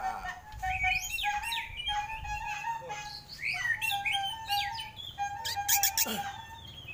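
White-rumped shama singing: a rapid string of varied whistles and sweeping notes, with a steadier, lower whistled note repeating behind it. A few sharp clicks come near the end.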